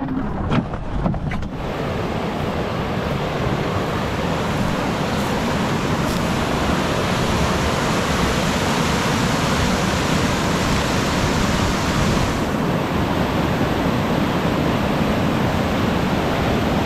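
Whitewater rushing over a Class 3 ledge rapid: an even, steady rush of water. A few sharp knocks in the first second and a half.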